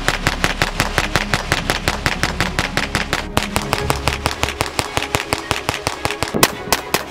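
Volquartsen ENV-9 .22 LR semi-automatic pistol fired in rapid strings of sharp cracks, about six shots a second, with a brief pause about three seconds in and another near the end.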